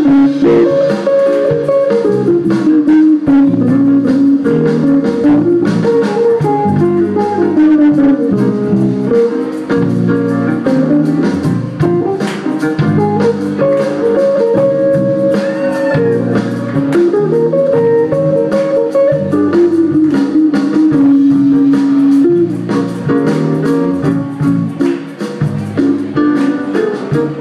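Live jazz band playing an instrumental number: a melody line with long held and sliding notes over hollow-body electric guitar, drums and cymbals.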